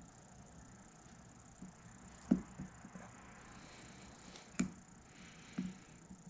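A few short, sharp clicks and taps from hands working at the wired branches and trunk of a juniper bonsai, the two loudest about two and a half and four and a half seconds in, over a faint steady hiss.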